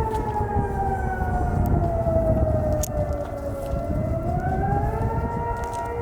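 Siren-like wailing tone that slides slowly down in pitch for about four seconds, then rises again, over a steady low rumble.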